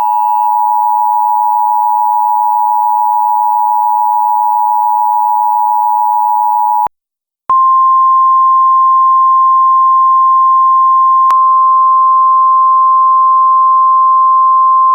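Emergency Alert System attention signal: a steady two-tone chord for about seven seconds, then a brief silence, then a single slightly higher steady tone, the NOAA Weather Radio alert tone. A faint click sounds partway through the second tone.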